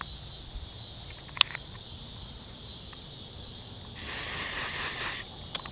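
Aerosol can of Axe body spray hissing for about a second as it is sprayed onto a frog lure, near the end, over steady insect noise. A sharp click sounds shortly after the start.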